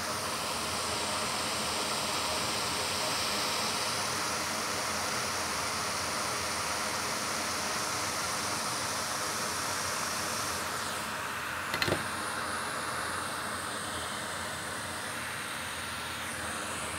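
Steady fan hiss of a bench fume extractor, with faint high steady tones in it. A single sharp click about two-thirds of the way through.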